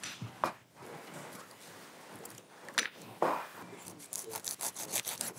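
Kitchen work sounds: a few scattered knocks of cookware, the loudest a little after three seconds in with a short ring, then a quick run of knife strokes on a wooden cutting board as artichokes are cut.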